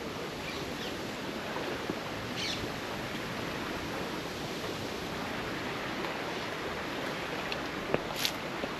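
Steady rush of water from a stream waterfall, with a few faint clicks near the end.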